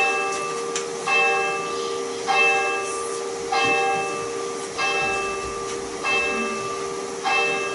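A church bell tolling slowly, struck seven times about every 1.2 seconds, each stroke ringing out and fading over a steady hum.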